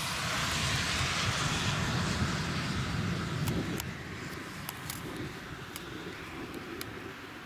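A car passing on a wet road, its tyre hiss and low rumble fading away over a few seconds. A handful of light ticks follow in the second half.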